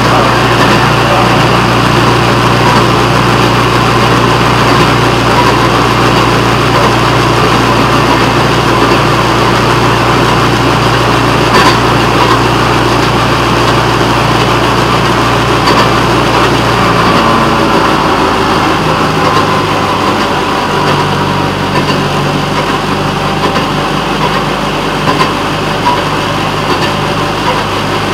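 A railroad motorcar's small engine runs steadily as the car rolls along the track. About two-thirds of the way through, the engine note shifts and eases a little.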